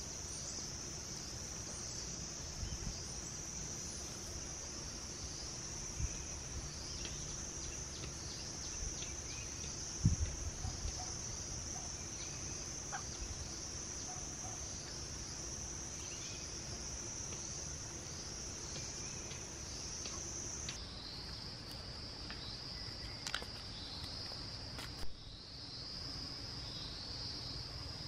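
Steady high-pitched drone of crickets, with short falling chirps and faint clucking of chickens at times, and a dull thump about ten seconds in.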